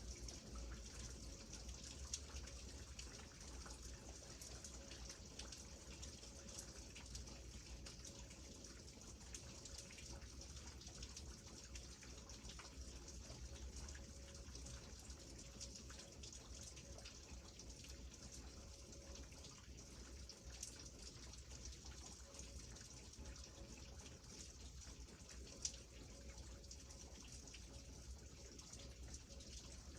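Steady, faint rain: a continuous hiss of many small drops, with a low rumble underneath and two sharper drop ticks, one a couple of seconds in and one near the end.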